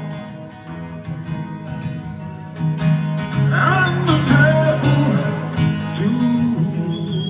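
Live rock band playing: guitars over bass and drums, with a lead line that bends and glides in pitch about halfway through.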